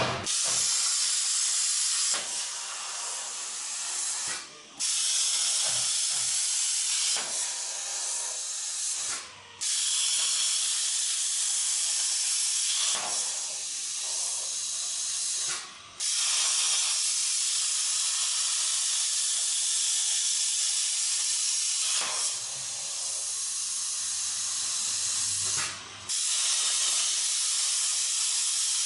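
CNC plasma cutter torch cutting metal: a loud, steady high hiss of the arc and air jet, stopping for a moment four times.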